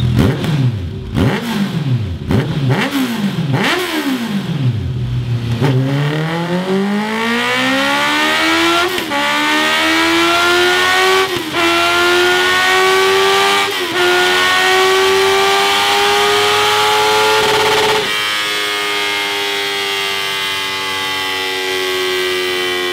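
Honda CBR650R's inline-four engine through a Scorpion Serket Taper full-system exhaust on a dyno. It is revved in a handful of quick blips, then pulls in one long rising run that dips briefly three times as it shifts up through the gears. About three-quarters through, the revs step down a little and hold steady.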